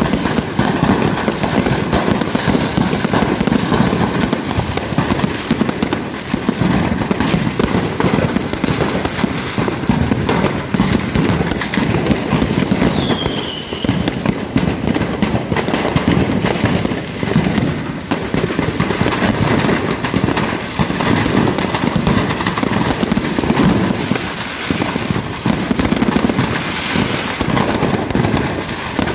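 Fireworks set off by a large fire, going off without pause: a dense, unbroken barrage of bangs and crackles. A short falling whistle cuts through about halfway.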